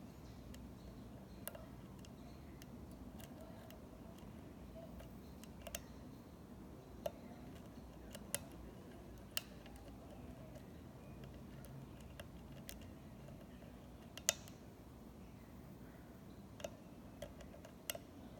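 Lock pick and tension wrench working inside an American 1100 padlock: faint, scattered small clicks at irregular intervals, the sharpest about fourteen seconds in.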